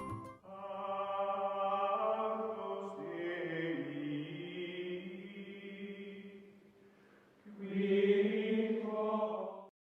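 Music of slow, held choir-like chords. It fades away about seven seconds in, swells back, then cuts off suddenly near the end.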